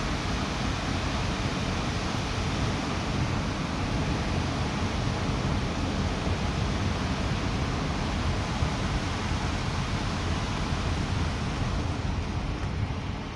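Steady rushing roar of falling water from a waterfall, an even noise that holds without change.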